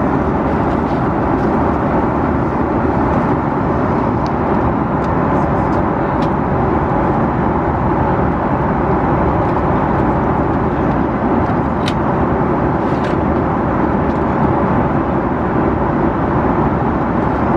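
Steady cabin drone inside an Airbus A330-300 with Rolls-Royce Trent 772B engines: engine and airflow noise, even in level, with a faint steady hum through it and a couple of light clicks about twelve and thirteen seconds in.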